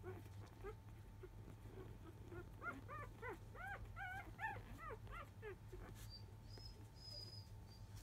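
A dog whimpering: a quick run of about a dozen short whines, each rising then falling in pitch, lasting about three seconds in the middle.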